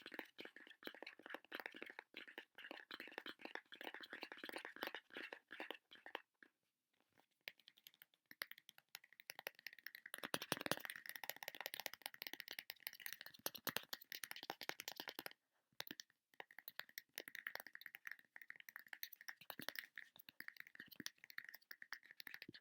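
Fast ASMR tapping: a dense run of quick, light taps many times a second, breaking off briefly about six seconds in and again about fifteen seconds in.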